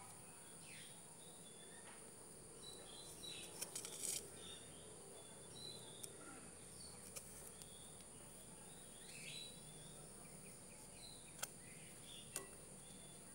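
Quiet outdoor ambience of faint bird chirps and a steady high insect hum, with a few light clicks as hands pull nylon twine and handle a plastic netting needle and ruler while knotting net meshes. A short cluster of clicks comes a few seconds in, with two single clicks near the end.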